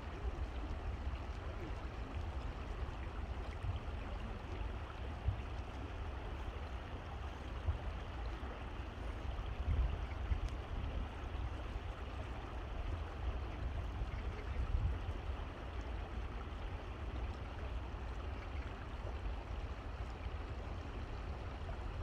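Steady rush of flowing stream water, an even hiss over a heavy low rumble, with a few small splashes and knocks.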